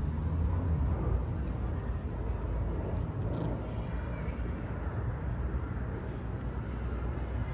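Outdoor background noise: a steady low rumble under a faint even hiss, with no animal calls standing out.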